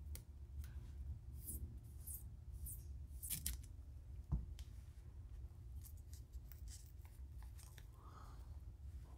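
Blue painter's tape being peeled and pressed onto a foiled wooden lure body: faint crackly peeling and rustling in short bursts, with one soft knock about four seconds in.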